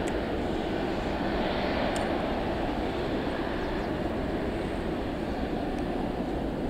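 Jet airliner's engines heard at the airport: a steady rumbling roar that eases slightly in the second half.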